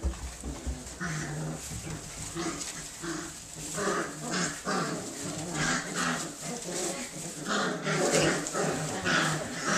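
A litter of puppies playing rough, with a steady jumble of short, overlapping play growls, yips and whines, over the rustle of shredded-paper bedding.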